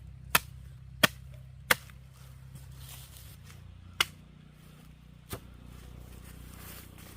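Five sharp strikes of a hand tool on hard ground or wood, three in quick succession, then two more spaced further apart, the last one softer. A faint low hum runs underneath.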